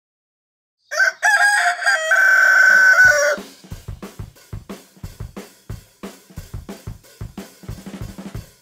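A rooster crowing once: a stuttering start and then a long held note. About three and a half seconds in, a quieter drum-kit beat starts up.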